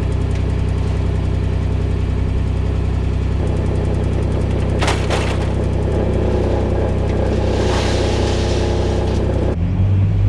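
Vehicle engine running at a steady speed, with one sharp knock about five seconds in.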